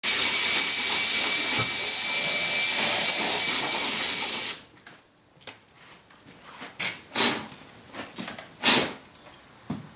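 Cordless drill running steadily on a fitting of a tractor plow for about four and a half seconds, then stopping suddenly. After it, scattered metallic clicks and scrapes of parts being handled, with two louder ringing clinks near the end.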